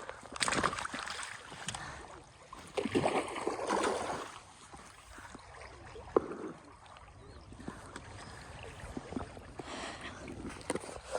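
River water splashing and sloshing in two bursts of about a second each, with a sharp click in between and a faint steady rush of water under it.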